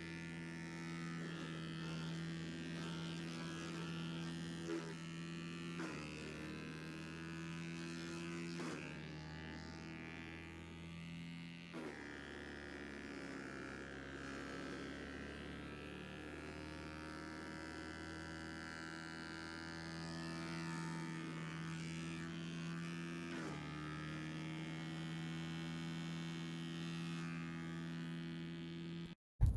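Vermeer BC600XL wood chipper's 25-horsepower gasoline engine running steadily with a buzzing drone. A few times there is a small knock and the pitch briefly sags and recovers, as when branches are fed in.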